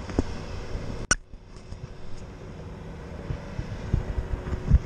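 Handling noise from a small camera being grabbed and tipped over on a concrete wall: one sharp click about a second in, then a series of low bumps and knocks near the end, over a steady low rumble.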